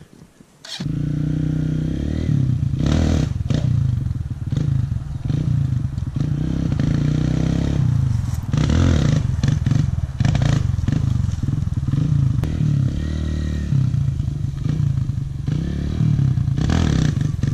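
Kawasaki dirt bike engine running and revving as the rider practises wheelies, its note rising and falling with the throttle. The sound cuts in abruptly about a second in.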